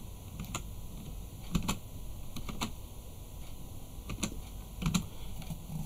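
Computer keyboard keys being pressed one at a time: about six separate keystrokes, roughly a second apart, typing in a short code.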